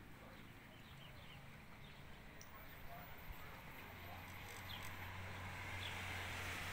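Birds chirping faintly in short, scattered calls over a soft hiss that slowly grows louder, with a low steady hum coming in about four seconds in.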